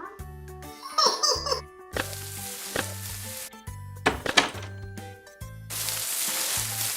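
Cartoon background music with a steady pulsing bass beat, overlaid with sound effects: a squeaky gliding voice-like sound about a second in, a few sharp hits, and a hissing noise that swells near the end.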